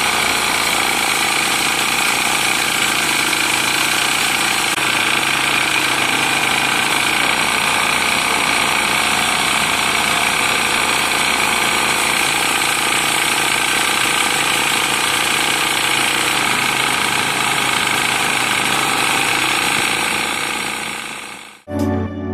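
Homemade belt-driven chainsaw powered by a Zubr walk-behind tractor's engine, running steadily while its chain cuts through a thick log. It cuts off abruptly near the end.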